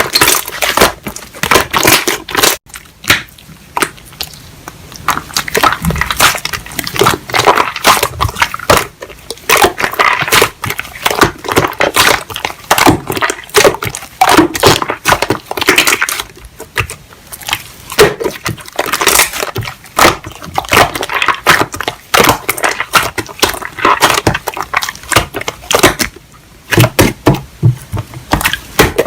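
Hands squishing, pressing and stretching slime, giving a dense, irregular run of wet clicks and crackles.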